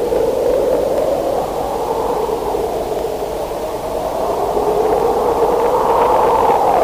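Raw, lo-fi black metal rehearsal recording: heavily distorted guitar and band merged into a dense, muffled wall of noise whose pitch drifts slowly.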